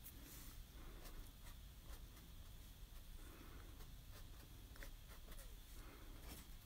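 Faint scratching and dabbing of a small paintbrush on stretched canvas, over quiet room tone.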